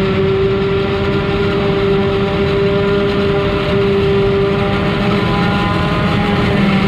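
Heavy farm machinery at a maize harvest, a forage harvester or a tractor, running steadily with a large diesel engine: a loud, even drone with a constant humming tone.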